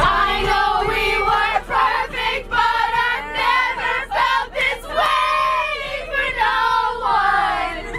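A group of young women shouting and squealing together, many voices at once with long, drawn-out pitched cries.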